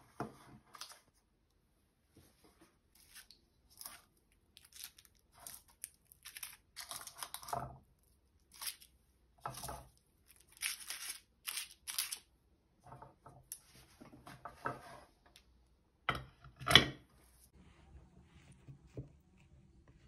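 Paper cupcake liners crinkling and rustling in short bursts as baked buns are lifted out of a metal muffin tin, with one louder knock late on.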